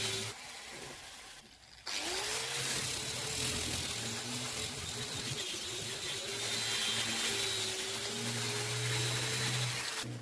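An electric power tool's motor running. It cuts out shortly after the start, spins back up with a rising whine just before two seconds in, then runs steadily, its pitch wavering slightly.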